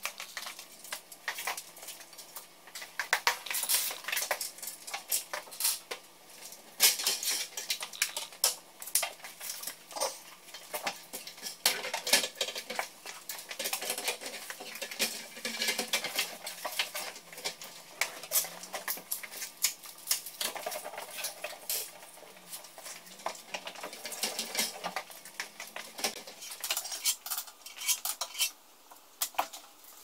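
Irregular metallic clicks and clinks of a desktop PC case, its drive trays and screws being handled and fitted together.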